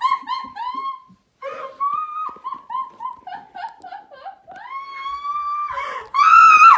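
A woman laughing in high, squealing bursts: a quick run of short shrieks, then a string of falling squeals, then a long rising squeal and a loud shriek near the end.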